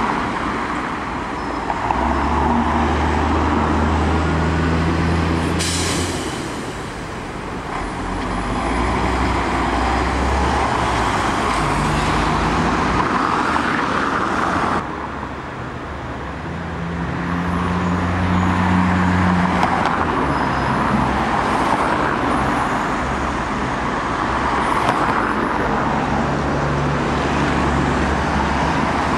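Town-centre road traffic: buses and cars passing and pulling away, their engines rising and falling, with a short hiss of air about six seconds in.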